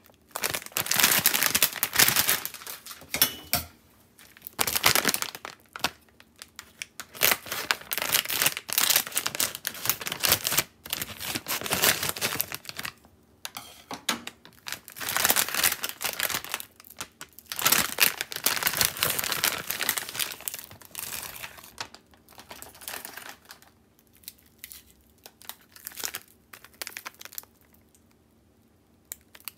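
Plastic packaging of a frozen ramen kit crinkling in repeated bouts as the bag is handled and opened and the frozen noodle block in its plastic film is taken out. The crinkling turns sparser and fainter over the last several seconds.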